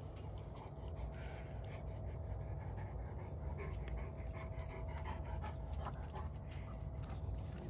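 A dog panting, faint, over a steady low rumble.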